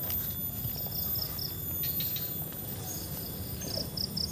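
Insect chirping in short quick runs of high pulses, a run about a second in and another near the end, over a low rumble of the camera being carried through grass.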